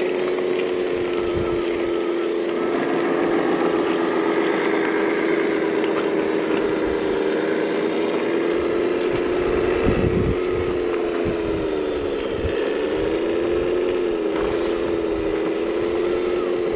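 Electric motor and gear drive of an RC model construction vehicle whining steadily, with a higher whine rising and fading a few seconds in and the pitch dipping briefly twice near the end.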